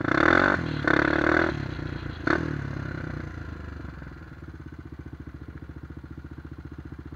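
Honda 400EX quad's single-cylinder four-stroke engine running along a dirt trail. Two loud bursts of noise come in the first second and a half, with a sharp knock a little after two seconds. From about four seconds in the engine runs quieter and steady.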